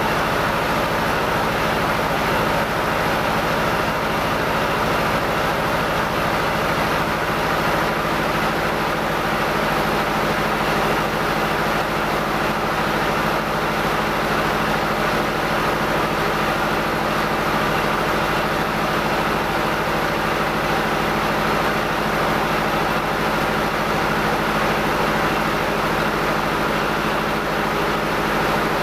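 Rice mill machinery running steadily: an old N50 paddy husker and a rice polisher working together. The sound is a loud, unchanging mechanical drone with a steady low hum.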